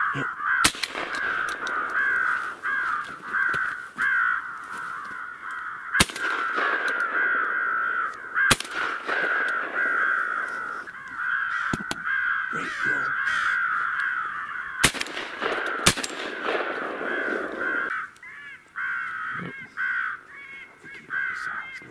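Crows cawing without pause in a dense, overlapping chorus. A few sharp bangs cut through, about six, eight and a half, fifteen and sixteen seconds in.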